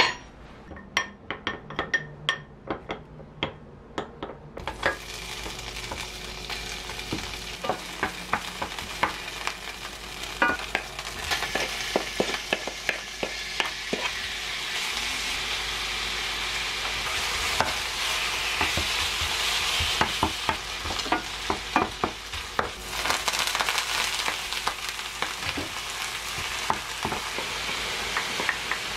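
A metal spoon clicks against a glass container as a starch-thickened sauce is stirred. About four and a half seconds in, pork belly starts to sizzle steadily in a frying pan, with repeated clicks of utensils in the pan.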